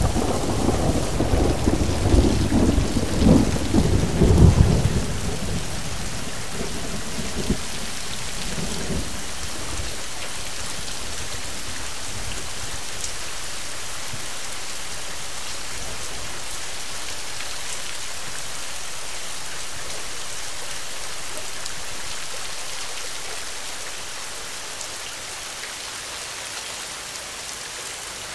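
Thunder rumbling over steady rain. The rumble fades away within the first several seconds, leaving the rain's even hiss, which softens a little near the end.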